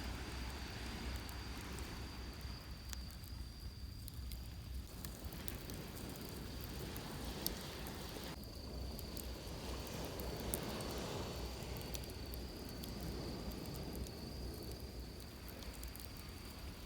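Wood campfire crackling with scattered small pops, two sharper ones about seven and ten seconds in, over a steady high insect trill and the low, constant wash of surf on the beach.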